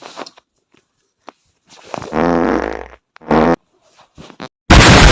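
Fart noises: a buzzing fart about two seconds in, a short second one just after, then a much louder, harsher blast near the end, played as a prank.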